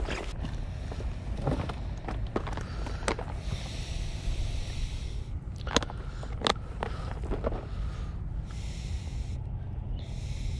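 Footsteps through grass and the rustle of clothing and fishing gear, over a steady low rumble; a few sharp clicks of gear being handled around the middle.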